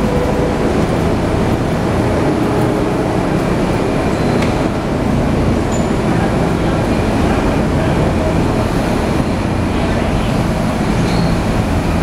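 Steady low rumble and hum of a SEPTA Broad Street Subway train standing at the station platform, even in loudness throughout.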